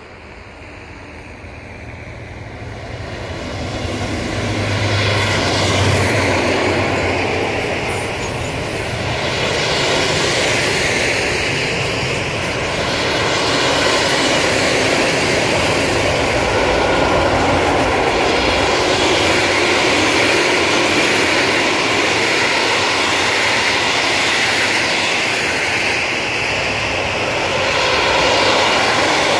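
A freight train passing close by. The locomotive grows louder over the first six seconds as it approaches and passes. Then come the steady rumble and rolling noise of the mixed freight wagons' wheels on the rails.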